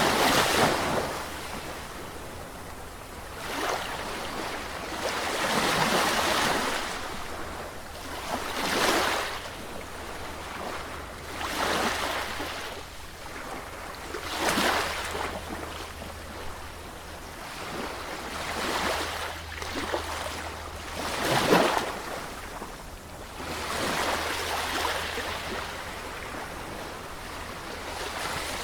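Sea waves breaking and washing on a shore, a fresh surge every two to three seconds. A faint steady low hum runs beneath.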